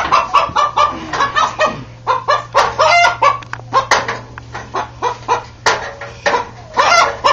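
A cornered rooster clucking and squawking in quick short calls, several a second: alarm calls from a frightened bird.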